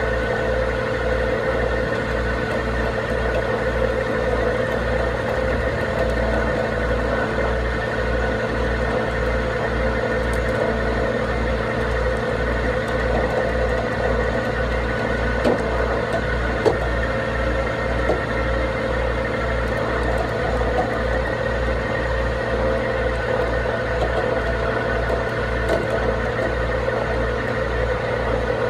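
Heavy tow truck engine running steadily at a held speed, with a steady whine over a regular low throb of about two beats a second, while its rigging slowly pulls the loaded trailer.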